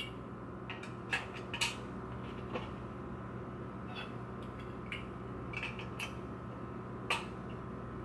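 Metal bread pans knocking lightly together as the lid pan is set on and fastened with metal binder clips: a few scattered light clicks and clunks, the sharpest near the end as a clip snaps onto the pan rims.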